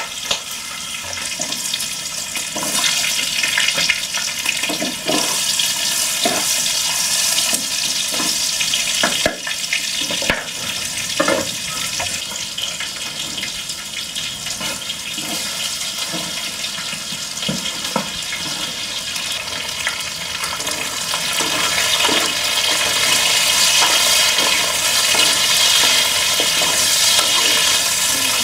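Food sizzling and bubbling in a hot cooking pan, with a utensil stirring and knocking against it now and then. The hiss grows louder about three quarters of the way through.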